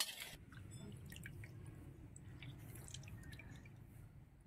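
Faint dripping and squishing of water as boiled soya chunks are squeezed out by hand in a steel bowl of cold water, over a steady low hum.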